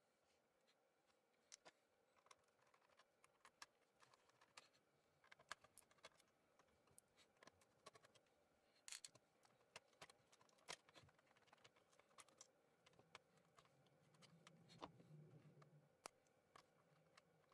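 Near silence with faint, irregular clicks and taps of hands and a small tool handling an opened laptop's motherboard and parts, and a faint low hum for a few seconds near the end.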